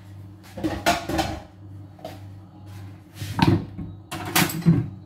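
Kitchenware clattering at a sink: a metal pot lid and dishes knocked and set down in a few separate clinks and clunks about a second in and again past the three-second mark, over a steady low hum.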